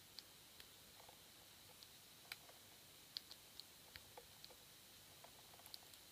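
Faint, irregular small clicks of a lock pick working the pins inside a Yale Y300/63 six-pin padlock during single-pin picking, a dozen or so scattered ticks.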